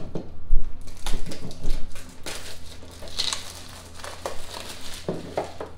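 Plastic packaging crinkling and rustling while a small cardboard-sleeved airbrush case is handled, with a few light knocks from the box.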